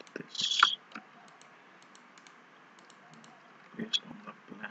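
Clicking of a computer mouse and keyboard: a short, dense clatter of keys about half a second in, then a few scattered sharp clicks, with another small cluster near the end.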